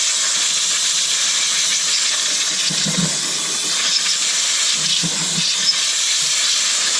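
Compressed air blowing dust off a surface: a loud, steady hiss that starts and stops abruptly.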